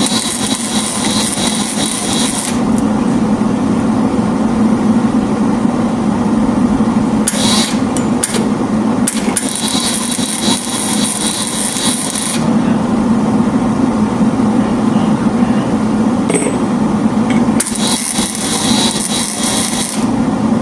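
Arc welding: several spells of crackling, hissing arc a couple of seconds each, the longest about three seconds, with two short tacks in between, over a steady low hum.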